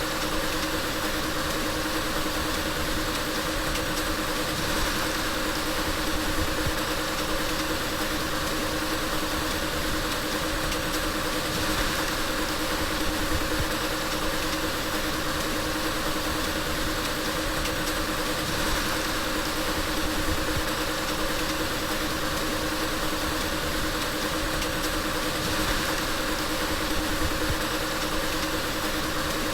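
Car engine idling steadily, with an even hum that does not rise or fall.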